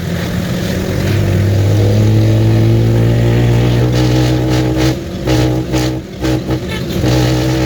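A vehicle's engine running while driving. Its pitch creeps up slightly as it pulls, then dips and breaks up briefly about five to six seconds in before settling back to a steady note.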